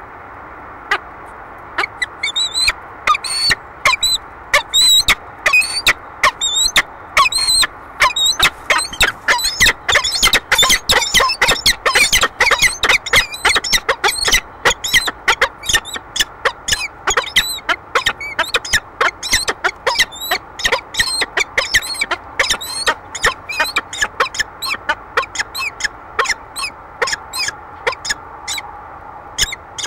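Peregrine falcon giving courtship calls at the nest ledge: a long run of short, harsh, squeaky calls, about two to three a second, beginning about a second in and coming thickest in the middle, over a steady background hiss.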